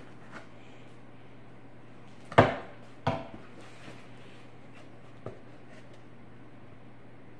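Cardboard shipping box being handled and knocked against a wooden side table while it is cut open with a knife: two sharp knocks a little under a second apart about two and a half seconds in, the second with a short ring, then a few light taps.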